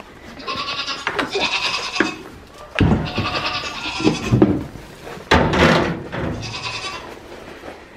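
Young goats bleating in pens, three bleats in a row. Noisy rustling and bumps come between the calls.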